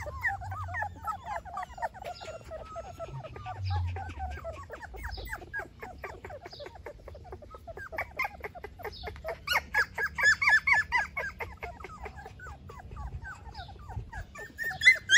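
Golden retriever puppies whimpering and squealing: a constant string of short, high-pitched cries from several pups, coming thick and fast and loudest about ten seconds in.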